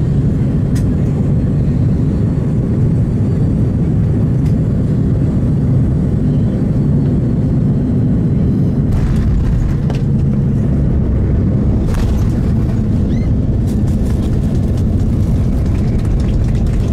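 Airbus A330-200 cabin noise: a loud, steady low rumble of the airliner in motion. A few sharp knocks stand out, and near the end there is a run of quick rattling clicks.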